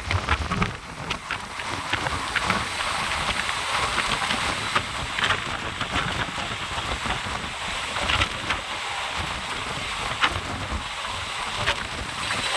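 A steady rushing noise with many scattered sharp clicks and rattles.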